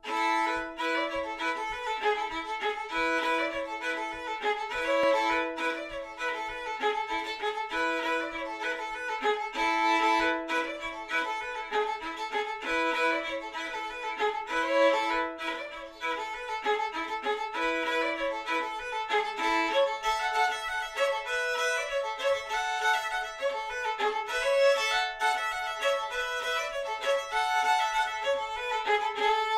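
Solo fiddle playing a lively trad-style folk tune, the bow moving through a quick run of melody notes with a low note sounding underneath much of the time.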